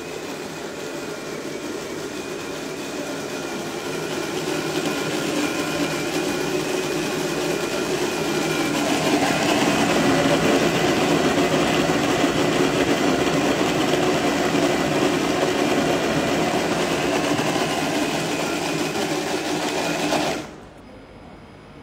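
Osojimix OM6 kitchen robot's motor and blade running, blending a batch of homemade Nutella (hazelnut-chocolate paste) to make it smoother. The steady whir grows louder about halfway through and cuts off sharply near the end as the timer runs out.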